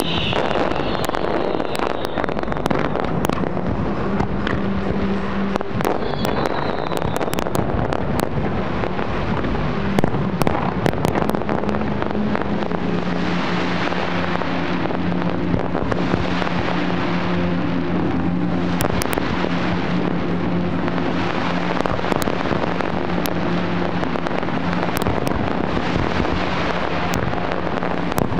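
Large fireworks display going off continuously: dense crackling and popping of bursting shells over a constant rumble, with a steady low drone underneath from about four seconds in.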